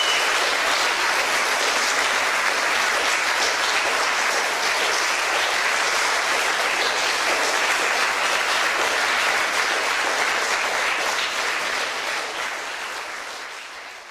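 Audience applauding steadily after a choir's performance, fading out near the end.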